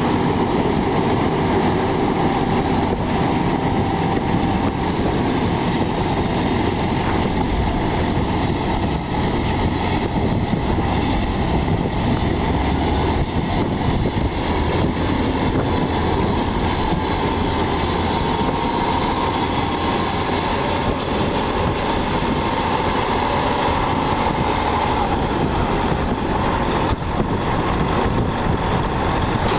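A John Deere 9630 tractor's 13.5-litre six-cylinder diesel engine running steadily under power, a heavy continuous rumble. A faint whine rises and then eases off about twenty seconds in.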